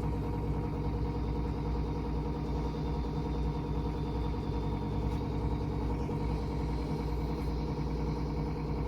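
A steady low hum with a thin, faint higher tone above it, unchanging throughout.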